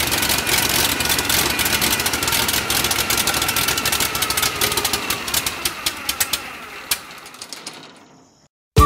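Franklin air-cooled aircraft engine with propeller running on a test stand, its exhaust a fast, even stream of firing pulses. About halfway through it winds down: the pulses thin out and fade as the propeller slows.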